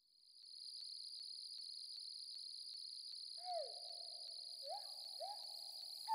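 A faint, steady, high insect-like chirring with faint regular ticks fades in as an added soundtrack. From about three and a half seconds in, several low tones swoop down in pitch and then hold.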